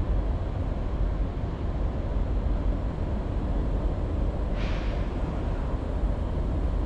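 Diesel locomotives of an approaching Norfolk Southern freight train heard from a distance: a steady low rumble, with a short hiss about four and a half seconds in.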